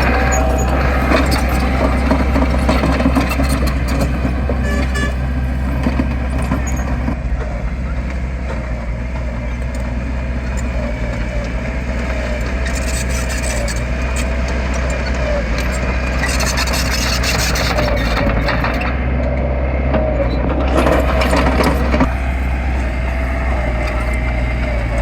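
Heavy construction machine's diesel engine running steadily: a strong, unbroken low drone with a wavering whine above it.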